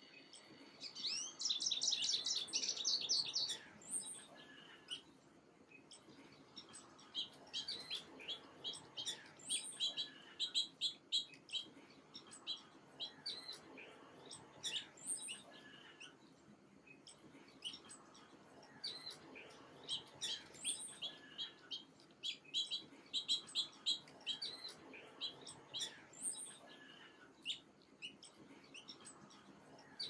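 Small songbirds chirping: a fast run of high notes about a second in, then repeated bursts of quick, high chirps.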